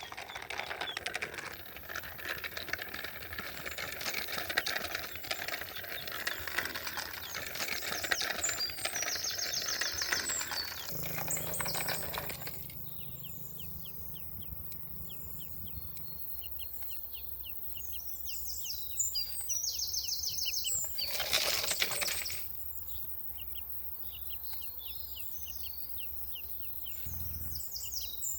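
Busy rustling and clattering for about twelve seconds, then quieter outdoor sounds: high bird calls and a fast run of chirps, broken by a brief rush of noise near the end.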